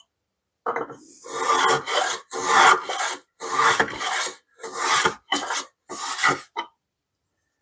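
Budget wooden roundover hand plane making about eight quick passes along the edge of a poplar board, its iron cutting shavings on each stroke; the strokes get shorter toward the end.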